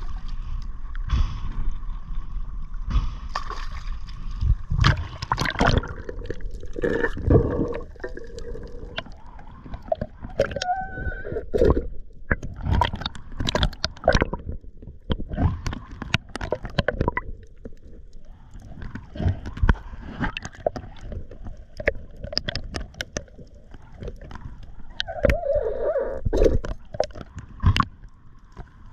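Water sloshing, splashing and gurgling around a waterproof action camera as a spearfisher swims between the surface and just below it, with many irregular knocks and muffled underwater rumbles and a few brief gurgling squeals.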